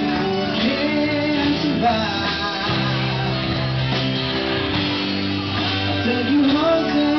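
A live rock band playing a song, with acoustic and electric guitars over the band and a man's voice singing in places.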